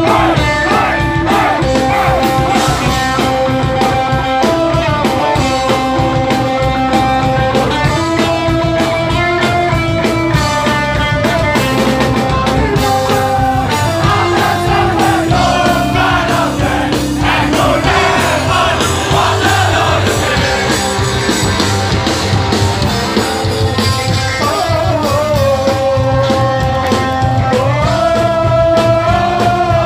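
Live hardcore band playing loud: distorted electric guitars holding chords that change every second or two over a pounding drum kit, with singing. The middle of the passage thickens into a denser wash of cymbals and noise before the held chords return.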